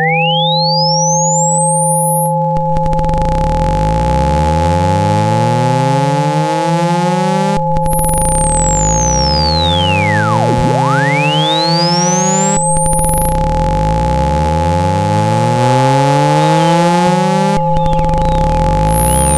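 Synthetic speaker-cleaning tones for ejecting water from a phone speaker: a pure tone sweeps from very low up to a piercing high and back down, twice, over steady mid and low hums. Rising low chirps repeat in a fast sequence, restarting about every five seconds.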